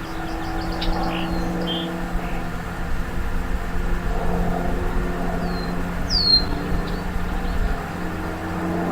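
A steady engine hum, like a motor vehicle running, with a few short falling bird chirps over it.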